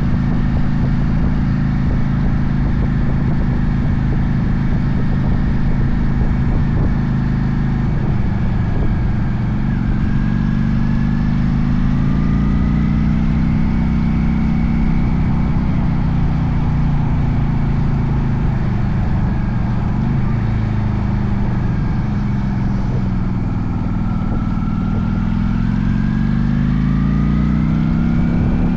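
Honda Steed VLX 400's V-twin engine running while the motorcycle is ridden. Its pitch rises and falls with throttle and gear changes, and it climbs steadily over the last few seconds.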